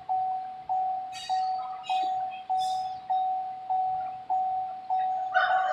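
Car warning chime from the 2017 Hyundai Tucson: a single-pitched electronic ding repeating evenly, about every 0.6 seconds. A few light clinks sound between the dings in the middle.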